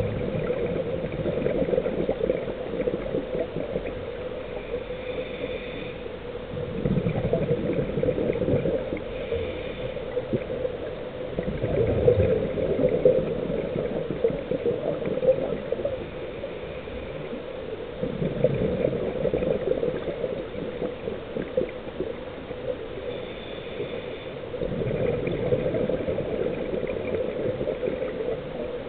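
A scuba diver's regulator breathing underwater: bursts of exhaled bubbles gurgling about every six seconds, over a steady hum.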